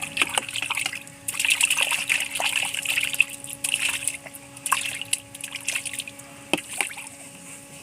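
Water trickling and splashing in a fish tank, with uneven bursts of sloshing and a steady low hum underneath.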